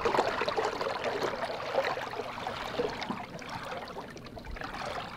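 Water rushing and splashing along the hull of a small wooden sailing dinghy moving under sail, a steady wash that eases off a little near the end.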